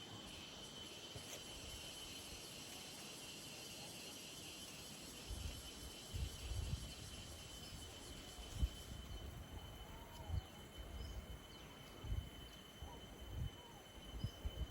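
Insects, crickets or similar, trilling steadily at a high pitch, the higher hiss of the chorus dropping away about nine seconds in. From about five seconds on, irregular low rumbles and thumps come and go.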